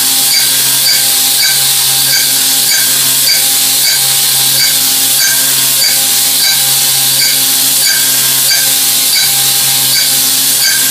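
Milling machine cutting 304L stainless steel with minimum-quantity lubrication instead of flood coolant: a steady spindle hum under a strong even hiss, with a light cutting pattern repeating a couple of times a second.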